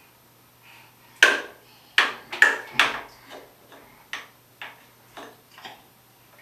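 A small plastic bath toy knocked against the side of a bathtub: about ten hollow knocks, the hardest ones in the first three seconds, then lighter taps about every half second.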